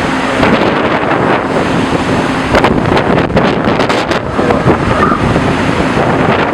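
Storm-force wind from Hurricane Sandy rushing and buffeting the microphone, loud and gusty, with scattered sharp crackles through it.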